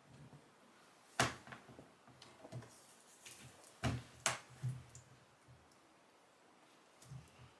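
A handful of light taps and clicks from fidget toys being handled and poked, the loudest a little over a second in.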